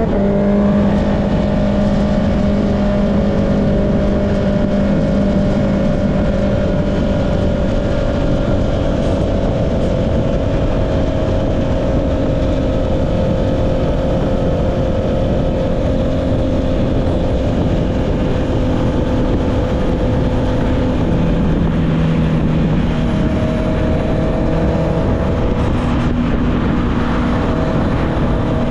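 Honda CB650R's inline-four engine through an Akrapovic exhaust, running under way at a fairly steady note that slowly sags. A little after three-quarters through the pitch dips lower, then steps back up. Wind rush runs underneath.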